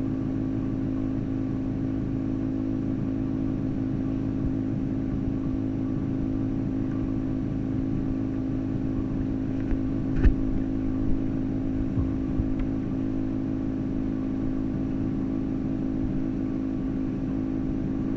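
Steady mechanical hum picked up through the water, made of several steady low tones, such as a tank pump or aerator motor. A few short knocks a little past halfway, the loudest about ten seconds in.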